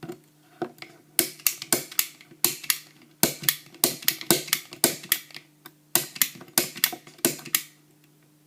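A lock pick gun snapping over and over in a padlock's keyway as it tries to bump the pins open: sharp clicks in quick runs of about three or four a second, which stop about a second before the end.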